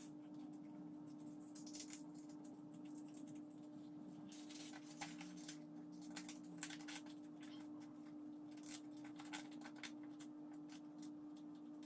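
Paper being folded and creased by hand: faint rustling, crinkling and scraping, busier in the second half, over a steady low hum.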